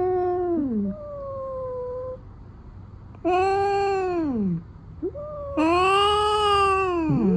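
Domestic cat meowing repeatedly: three loud, drawn-out meows that fall in pitch at the end, with quieter, shorter calls in between.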